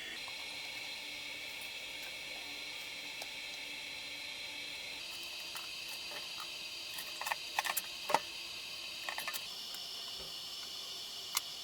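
A few light clicks and taps from parts being handled while a lithium battery pack is put back together, over a steady high hiss. The clicks come in small clusters about halfway through and once more near the end.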